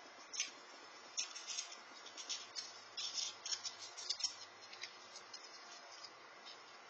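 Grey squirrels cracking and gnawing peanut shells: a quick, irregular patter of small crackling clicks that thins out after about five seconds, over a faint steady hiss.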